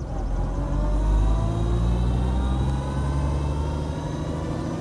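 A vintage car's engine running as it drives, heard from inside the cabin, with a whine rising in pitch over the first couple of seconds as it gathers speed, then running steadily.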